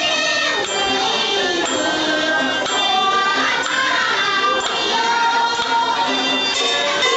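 Traditional Chinese ensemble music: a melody with sliding, bending pitch carried over gong, cymbals and a small drum.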